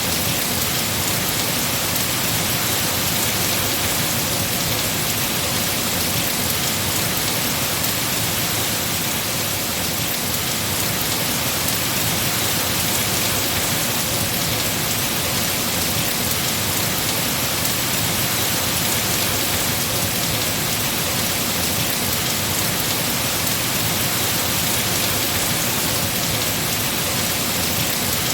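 Heavy rain falling steadily on tree foliage, an even unbroken hiss.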